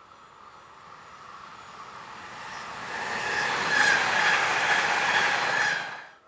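Electric multiple unit passing on the line, growing louder as it approaches and rolling by close with a high whine over the wheel noise. The sound cuts off suddenly near the end.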